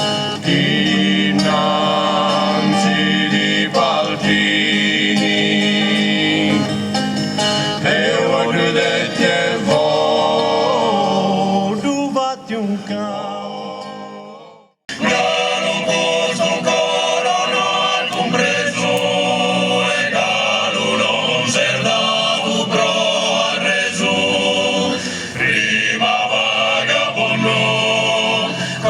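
Sardinian folk music with singing, fading out about halfway through; after a brief silence a second piece starts, with several voices sounding together.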